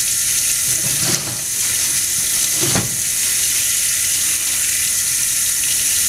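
Water running steadily from a lab sink's gooseneck faucet and splashing over gloved hands held in the stream.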